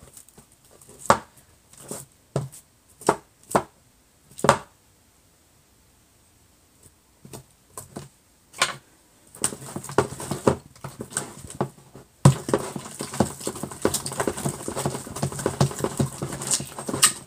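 Slime with magic eraser cubes being stirred with a spoon in a plastic mixing container. First come scattered clicks and knocks, then a continuous wet, sticky crackling that grows louder about twelve seconds in.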